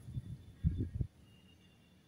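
Soft low thumps and handling noise from wooden ice cream sticks being held and pressed into place on a wooden tabletop, in about the first second. After that, only faint room tone.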